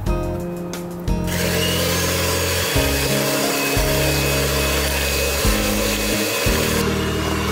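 Electric hand mixer switched on about a second in, its beaters whisking egg yolks and sugar in a glass bowl with a steady, rough whirring. Background music plays underneath.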